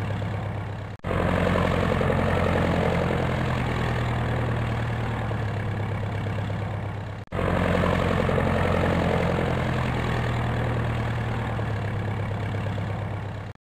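Helicopter running steadily, a low, even rotor and engine drone. The same stretch of recording repeats: brief dropouts about a second in and about seven seconds in, and it stops abruptly near the end.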